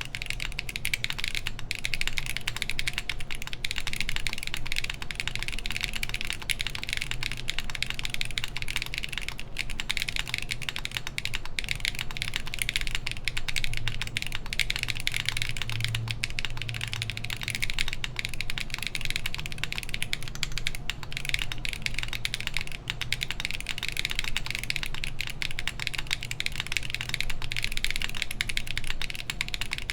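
Continuous typing on a mechanical keyboard with Everfree Grayish tactile switches, an aluminum plate and GMK Honeywell keycaps: a steady stream of key clicks with no pauses. A fan runs steadily underneath.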